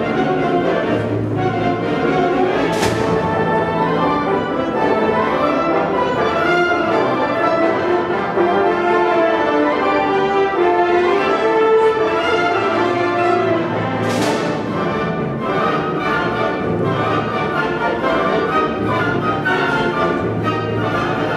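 High school concert wind band playing, woodwinds and brass together, with two crashes: one about three seconds in and one about fourteen seconds in.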